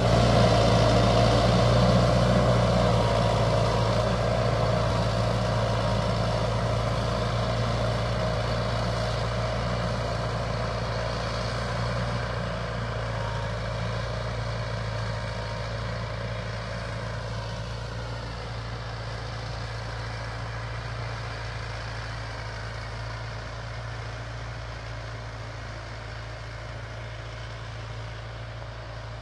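BMC farm tractor's diesel engine running steadily under load while pulling a plough through the soil, fading gradually as the tractor moves away.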